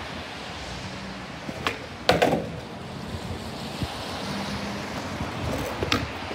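Skateboard wheels rolling over paving slabs with a steady rumble. About two seconds in comes a sharp clack of the board's tail followed by a louder slap as the board lands, and another sharp clack near the end.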